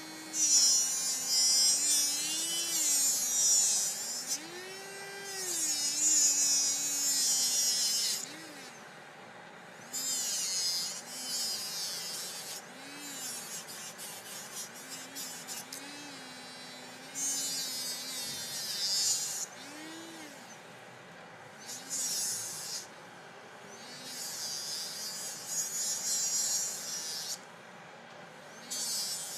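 Slow-speed dental handpiece spinning a brown trimming disc, its motor whine dipping and rising in pitch, with about seven stretches of hissing grinding as the disc is pressed against the thermoformed plastic of an anti-snore device to reshape and flatten it.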